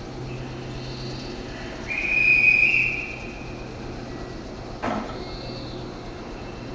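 Meitetsu train wheels squealing on the rails in high, steady tones that come and go. The loudest squeal lasts about a second, around two seconds in. A short clank near five seconds in drops into a falling tone, over a steady low hum.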